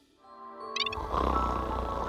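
Background music with a short twinkling chime a little before halfway, then a loud, rough, growling snore, a comic snoring sound effect.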